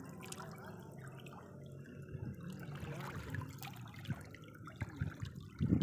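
Small splashes and lapping of shallow water as a hooked needlefish thrashes at the surface on a fishing line, with scattered light drips and clicks.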